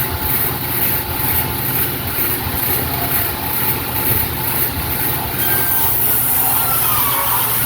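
Table saw running steadily as a rough-sawn hardwood board is ripped lengthwise, fed with a push stick; a faint tone dips and recovers near the end as the blade takes the cut.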